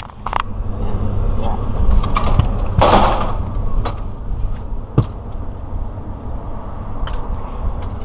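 Handling noise from a GoPro action camera being set down in a car's open rear hatch: a brief scraping rustle about three seconds in and a sharp click about five seconds in, over a steady low rumble of wind on the microphone.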